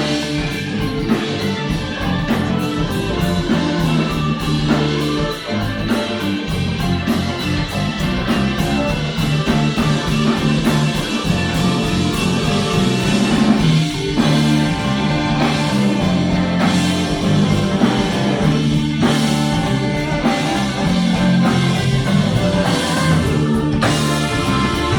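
Rock band playing a song: guitars over a drum kit keeping a steady beat.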